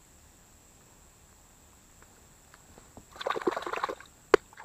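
A short burst of splashing and sloshing water about three seconds in, followed near the end by one sharp click.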